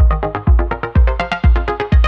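Electronic background music with a steady kick drum at about two beats a second and short plucked synth notes.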